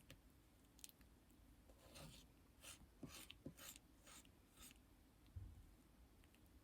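Faint, soft strokes of thick, creamy lipstick, about six in quick succession in the middle, with a few light clicks around them and one dull low thump near the end.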